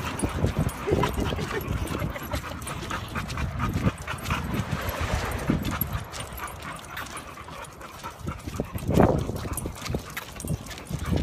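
A pack of dogs on a walk, with paws and footsteps ticking on the ground and dogs panting and whimpering. There is a brief louder sound about nine seconds in.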